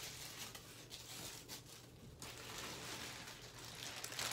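Faint rustling and handling sounds.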